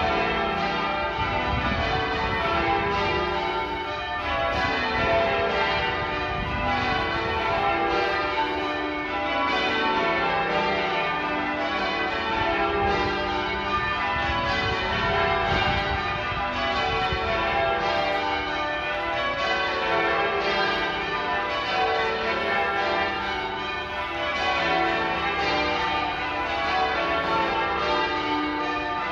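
Cathedral tower bells rung in changes: an even, unbroken run of overlapping bell strikes, each ringing on into the next.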